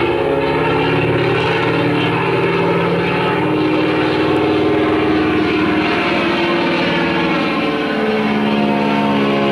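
Propeller-driven piston aircraft engine running steadily, with a small shift in pitch about eight seconds in.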